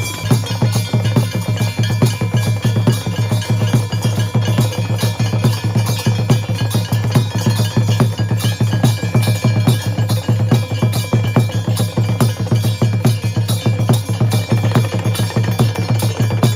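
Temple bells ringing without pause over fast, steady drumming, a dense run of rapid strikes typical of a Hindu puja.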